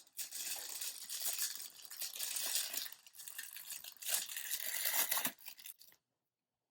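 Plastic packaging crinkling and tearing in irregular handfuls as a fidget toy is unwrapped, stopping abruptly near the end.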